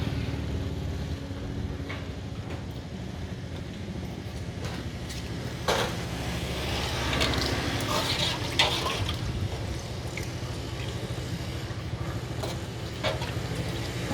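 An engine running steadily with a low hum, with a few sharp clicks and knocks over it.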